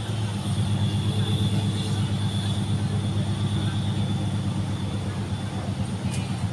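An engine running at a steady idle, a low even hum.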